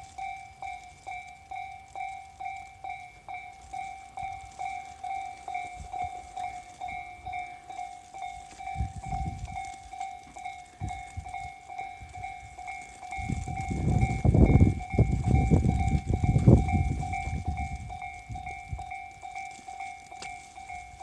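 Japanese level-crossing warning bell ringing, a steady electronic ding about twice a second, while a Tobu Tojo Line train passes over the crossing; the train's rumble swells a little past the middle and fades again as it goes by.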